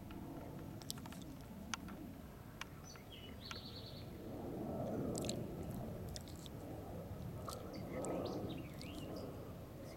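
Outdoor woodland ambience with faint songbird chirps and calls, a few soft clicks early on, and two swells of rustling noise about halfway through and near the end.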